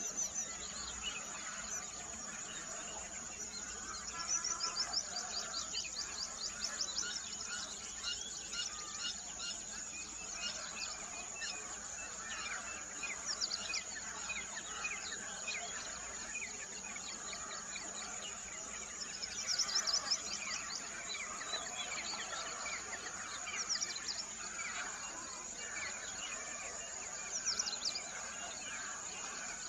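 Several songbirds chirping and trilling, with bursts of rapid high trills every few seconds, over a steady high-pitched insect drone.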